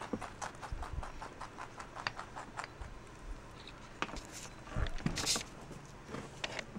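Pet rabbit chewing carrot tops: quick, even crunching at about five or six bites a second, with a louder rustle about five seconds in.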